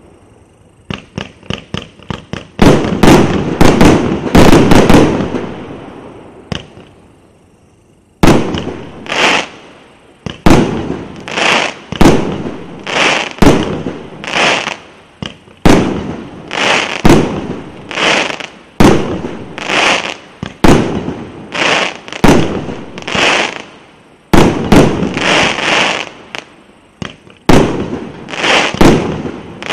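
A 1.2-inch, 100-shot fireworks cake firing, its shells going off as sharp bangs with short echoing tails. A few small pops come about a second in, then a dense flurry of shots, a lull of a few seconds, and from about eight seconds in a steady run of shots roughly one or two a second.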